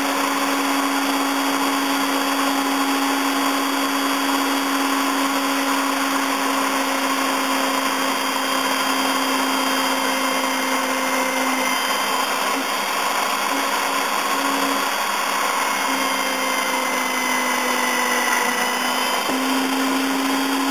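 Electric drill running steadily, boring pin holes through walnut knife-handle scales. A constant motor hum whose pitch wavers slightly in the second half.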